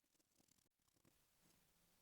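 Near silence: faint room tone with a few very faint small ticks in the first second.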